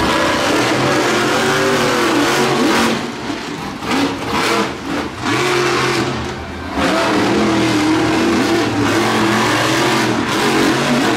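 Monster truck engines revving hard at full throttle, the pitch rising and falling, with the throttle lifted briefly several times in the middle.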